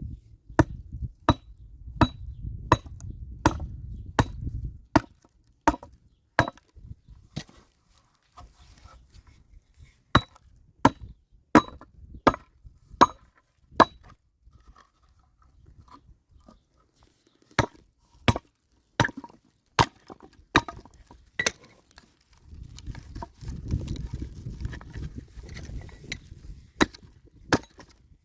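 A hand tool striking wood again and again, in runs of steady blows about a second and a half apart, some with a short ringing note, with pauses of a few seconds between runs. A low rumble sits under the blows at the start and again near the end.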